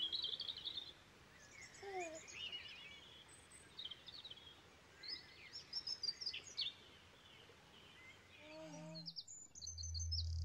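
Many small birds chirping and trilling in a steady outdoor birdsong ambience. Music comes in near the end.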